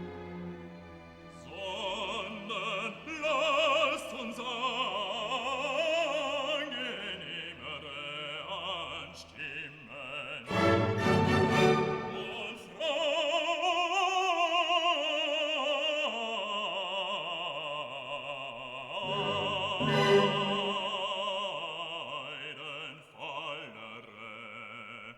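Background music: an operatic singer with classical instrumental accompaniment.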